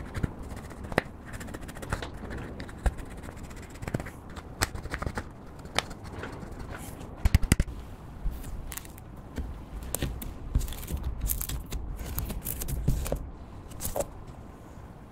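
Pressed eyeshadow being crumbled and scraped in its palette pan with a plastic stick, with sharp clicks and scrapes; a quick run of loud taps about seven seconds in. After that, clear slime covered in the eyeshadow powder is pressed and kneaded by hand, crackling and squishing softly.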